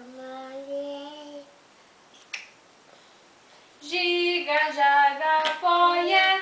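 A voice singing a song melody in held notes: one long note early, then a louder sung phrase of several steps from about four seconds in. Two sharp clicks of plastic toy blocks, one in the pause and one during the louder phrase.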